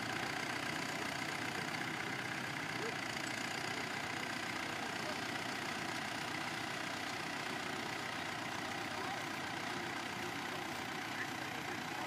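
Nuffield 10/60 tractor's four-cylinder diesel engine running steadily, pulling a plough.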